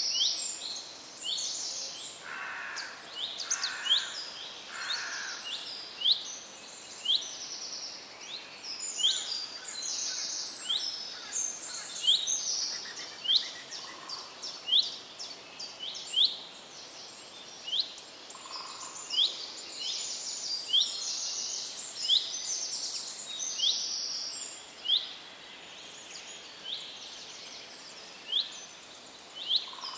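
Birds singing and calling in a dense chorus: many short high-pitched chirps overlapping, one sharp call repeating about every second, with a few lower notes mixed in.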